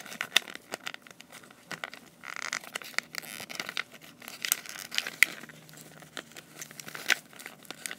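Plastic toy wrapper being handled and pulled at by hand: irregular crinkling and rustling with scattered small clicks.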